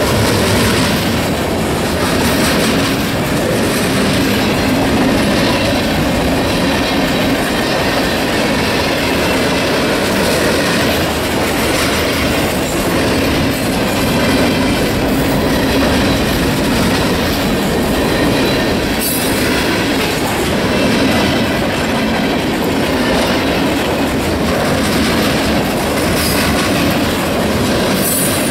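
Freight train cars rolling past close by at a steady speed: a continuous rumble of steel wheels clicking over the rails, with faint high wheel squeal coming and going about halfway through.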